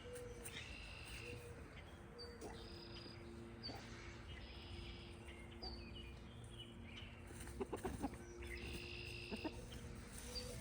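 Backyard chickens making soft, drawn-out calls, with short high chirps repeating and a few light taps about three-quarters of the way through.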